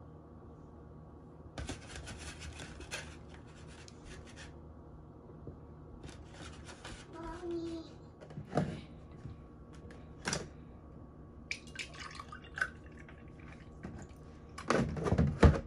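Plastic berry clamshells being handled and berries dropped into a ceramic bowl, in light scattered clicks and rustles. Near the end comes a louder, short burst of orange juice glugging as it pours from a plastic jug into a glass.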